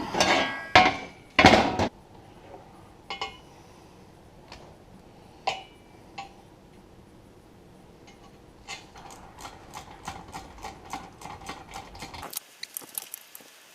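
Metal tractor-seat parts being handled on a workbench: a few loud clanks and knocks in the first two seconds, scattered clicks, then a quick run of metallic clicks, about five or six a second, near the end.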